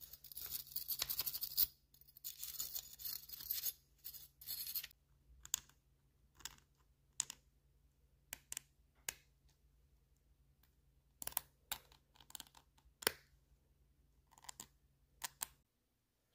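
Small wire brush scrubbing the bare die-cast metal body of a toy car in quick back-and-forth strokes for about five seconds. After that come separate short scrapes and ticks as a thin metal pick works leftover paint out of the body's panel grooves.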